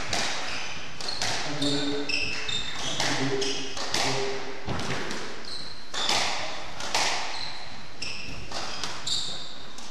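Squash rally: the ball cracks off rackets and the court walls every second or so, with rubber-soled shoes squeaking in short high chirps on the wooden floor.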